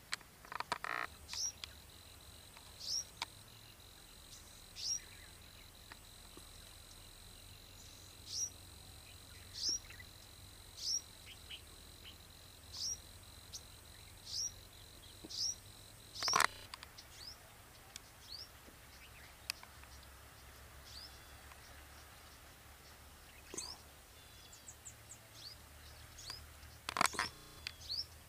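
Birds chirping: one bird repeats a short, sharp, downward chirp about every second or so through the first half, then scattered chirps follow. A thin steady high tone runs underneath and stops about halfway, and two sharp clicks come about halfway and near the end.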